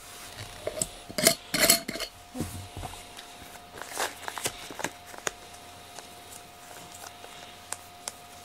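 Knocks and clinks of a glass jar and its lid being handled, with lighter clicks as rubber grooming gloves clogged with cat hair are worked over it. The two loudest knocks come close together about a second and a half in, and a faint steady hum runs underneath.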